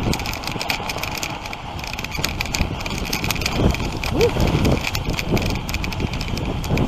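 Wooden dog sled running over snow behind a husky team: a steady scraping hiss from the runners with quick rattles and knocks from the sled frame. A short squeak-like sound rises and falls about four seconds in.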